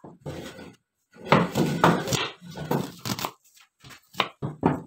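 Chef's knife chopping onion on a wooden cutting board: a run of short, irregular chopping strokes. A longer, louder clatter comes about a second in.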